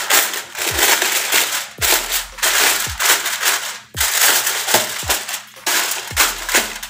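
Aluminium foil being crumpled and pressed by hand, crinkling loudly in uneven bursts. Under it, background music with a low thudding beat about once a second.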